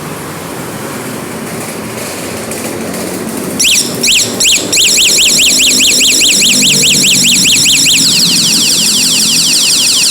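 Electronic bicycle horn sounding siren tones: after a few seconds of steady background noise, three short high chirps about three and a half seconds in, then a continuous warble sweeping up and down about five times a second, switching about 8 seconds in to a faster run of falling sweeps.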